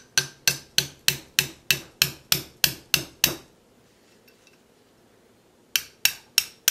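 Small hammer tapping a steel pin punch to drive a lever out of a Browning Hi-Power pistol slide: about a dozen quick, sharp taps at roughly three a second, then after a pause of about two seconds, four more taps.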